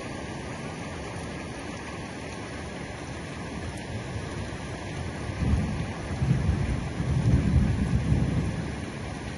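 Heavy rain falling steadily; about five and a half seconds in, a low rumble of thunder swells for about three seconds and fades.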